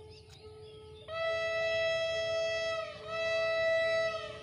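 Train horn of an approaching train sounding two long blasts, the first nearly two seconds, the second a little shorter, each with a slight drop in pitch as it ends. Birds chirp faintly before the horn.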